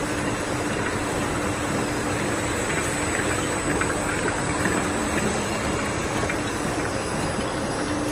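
Bouillon cube production line machinery running: steady mechanical noise with a constant hum from conveyors and the powder-feeding press.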